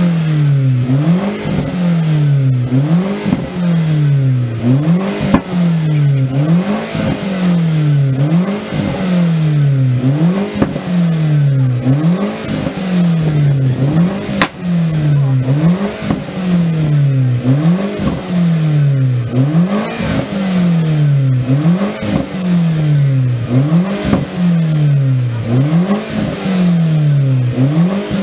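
SEAT Leon Cupra R's engine being revved over and over with the car standing still: a quick blip about every second and a half, the revs jumping up and then falling back each time. A single sharp crack about halfway through.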